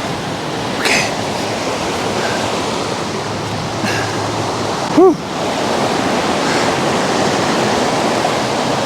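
Mountain river in high water rushing loudly and steadily close by, with one short knock about five seconds in.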